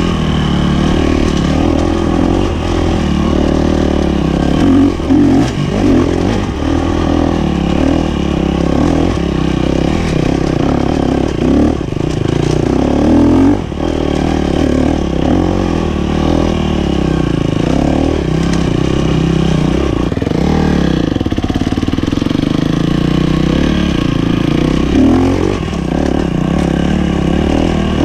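KTM 250 SX-F's single-cylinder four-stroke engine running hard as the dirt bike is ridden over a rough trail, its pitch rising and falling again and again as the throttle is opened and closed.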